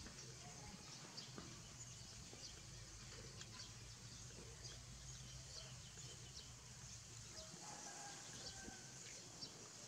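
Near silence: a faint low hum with soft, scattered small ticks and clicks.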